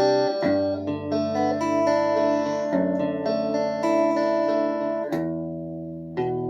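Guitar chords played for a sound test, each chord ringing on before the next is struck; one chord dies away for about a second before a new chord comes in near the end.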